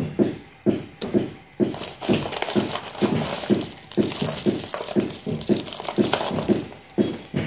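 Slate pencils clattering and rattling against each other as hands stir through a box of them. A regular low pulse comes about twice a second underneath.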